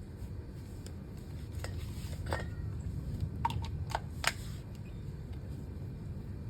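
A few light metallic clinks and taps, some with a short ring, over a steady low hum.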